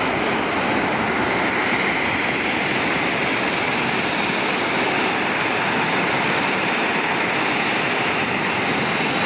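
Jet noise from a Boeing 757-24A(PF) freighter's two Pratt & Whitney PW2040 turbofans at takeoff thrust as it climbs away just after lifting off: a steady, even rushing noise that holds at one level.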